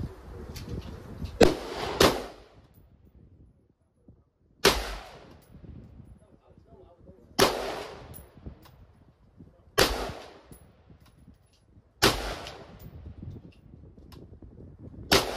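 Seven shots from a scoped AR-style rifle fired one at a time: the first two about half a second apart, then the rest at an even pace roughly every two and a half seconds, each sharp report trailing off in a short echo.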